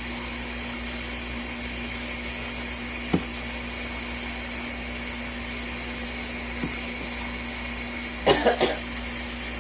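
Tap water running steadily with a faint hum, filling the washer or rinsing off the detergent cup. There is a single click about three seconds in, and a short cough near the end.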